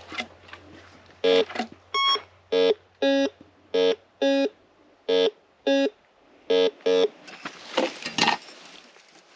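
Metal detector giving a run of short, low-pitched target beeps, mostly in pairs as the coil is swept back and forth over a target, with one higher beep among them. Rustling follows near the end.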